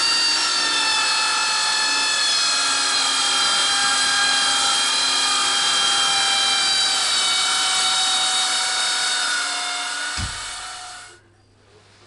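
Metal chop saw with a worn-out blade cutting through two clamped 40 by 20 mm steel box-section rails: a loud, steady grinding with a whine that slowly falls in pitch. About ten seconds in there is a thud and the saw dies away, stopping about a second later.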